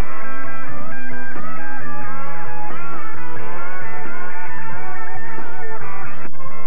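Background rock music led by guitar, with held and bending notes.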